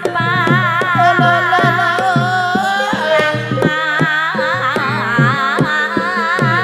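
Javanese Banyumasan gending music: a high melody line wavering with heavy vibrato over a steady pattern of deep kendang drum strokes, about three a second, each dropping in pitch after the hit.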